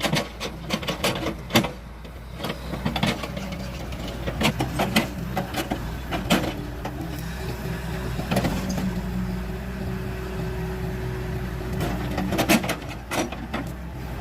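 An engine running steadily, with scattered sharp knocks and clanks. A steady whine comes in about eight seconds in and drops away about four seconds later.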